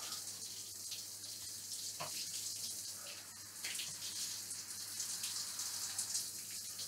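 Shower running: a steady hiss of water spraying onto a person and the shower, with scattered small splashes.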